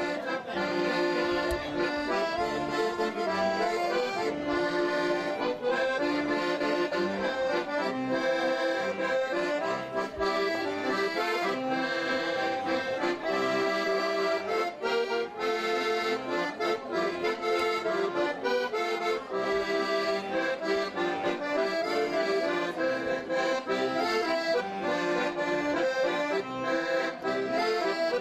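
Accordion music: a traditional folk tune played at a steady, even tempo.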